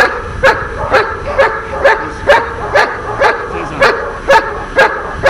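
A dog barking in a steady rhythm, about two sharp barks a second, without a break: the repeated barking of a dog in protection training.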